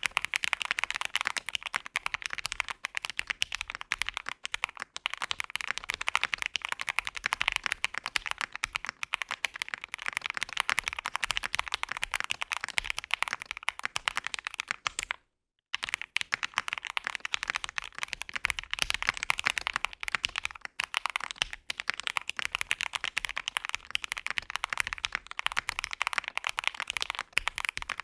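Continuous fast typing on a CKW80 mechanical keyboard in its gasket-mount build, with Marshmallow switches on an FR4 plate under GMK keycaps: a dense stream of keystroke clacks. It breaks off for about half a second roughly halfway through, then resumes.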